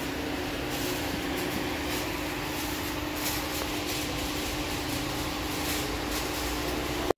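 Steady background room noise of a shop, with a constant low hum running under it.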